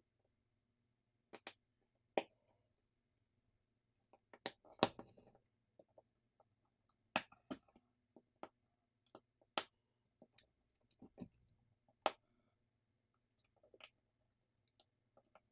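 Scattered sharp clicks and small taps as phone parts are pressed into place, with flex-cable connectors snapping onto the circuit board. About a dozen irregular clicks, with a brief rustle of handling about five seconds in.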